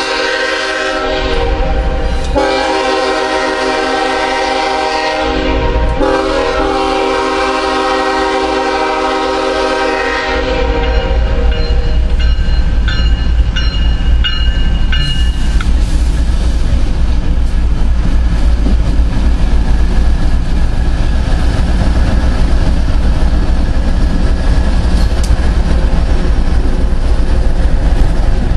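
Diesel freight locomotive's air horn sounding three long blasts, then the heavy rumble of the locomotives' engines and wheels as the coal train rolls past.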